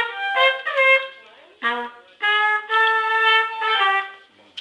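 Trumpet playing a short phrase: a few quick notes, a brief note, then longer held notes that step down and stop about four seconds in.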